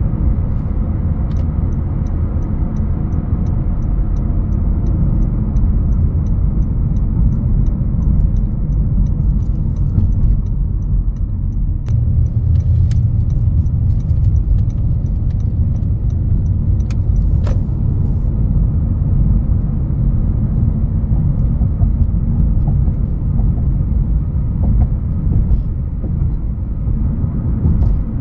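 Cabin noise of a 2021 Honda HR-V Sport AWD on the move: a steady low rumble of road and engine noise. A light, regular ticking, about three a second, runs through the first ten seconds or so, and a few sharp clicks come about halfway through.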